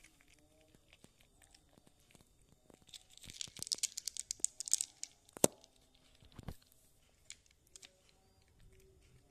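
A cat crunching dry kibble: a quick run of crisp crunches about three seconds in, then a few single crunches spaced out.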